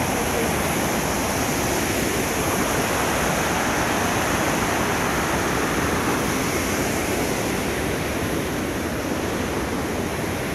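Rushing white water of a muddy mountain stream cascading over boulders: a steady, even rush of water with no break.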